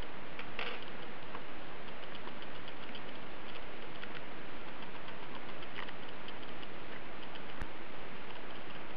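Faint regular ticking, about once a second, over a steady hiss, with one sharper click near the end.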